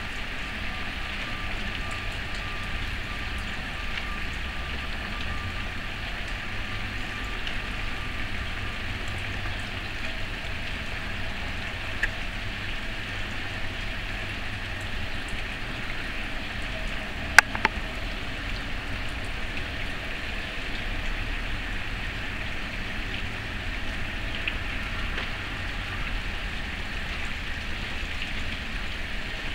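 Steady hiss of rain falling on ice-glazed trees, over a low distant rumble. One sharp double click stands out a little past halfway.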